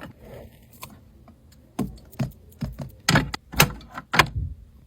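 A run of light clicks and taps, several in quick succession, from small plastic toy figurines and toy furniture being handled and tapped along a surface.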